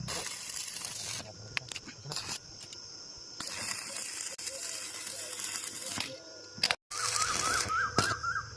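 Electric arc welding on steel reinforcing bar: the arc hisses and crackles in bursts, stopping and starting between welds.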